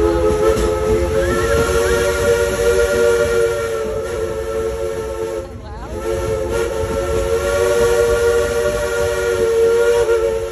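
Steam locomotive whistle sounding a chord of several notes in two long blasts, the second starting about six seconds in.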